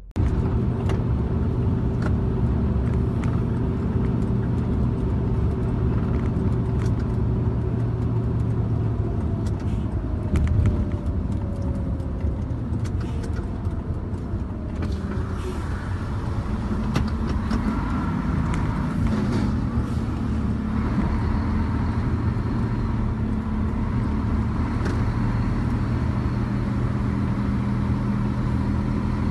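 Steady engine and tyre noise of a car driving on an expressway, heard from inside the cabin.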